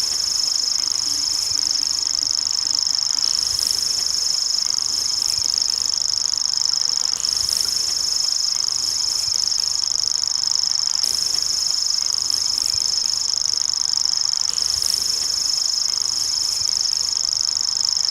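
Common grasshopper warbler (Feldschwirl) reeling: a continuous high-pitched, insect-like trill held without a break, with faint short higher notes every few seconds.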